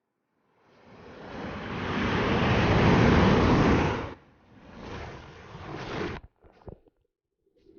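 Surf on the beach: a wave breaking and washing up the shore, swelling for about three seconds and falling away, then a smaller second wash.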